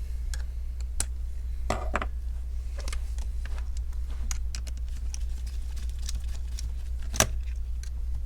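Scattered light clicks and taps of small laptop hinge parts (plastic pieces, screws and nuts) being handled on a work surface, the sharpest click near the end, over a steady low hum.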